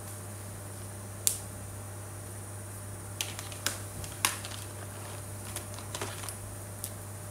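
Plastic marker pens clicking and clattering as a hand sorts through a pile of them: one sharp click about a second in, then a run of lighter clicks and knocks. A steady electrical hum underneath.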